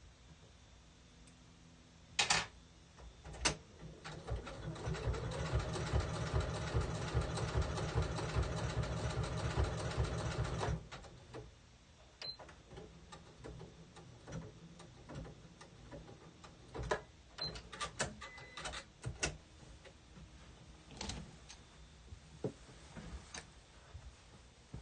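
Sewing machine stitching appliqué onto a towel: it runs steadily for about seven seconds with a fast, even needle rhythm, then stops. Two sharp clicks come just before it starts, and scattered light clicks and taps follow.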